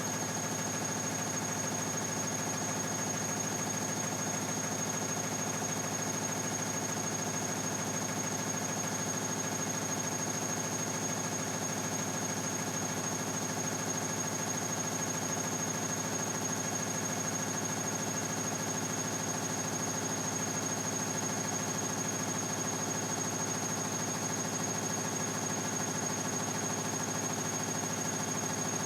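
Bosch Classixx 6 Vario Perfect front-loading washing machine spinning at steady speed with an unbalanced load, a continuous loud mechanical drone with a fast rattling throb and a thin high whine over it.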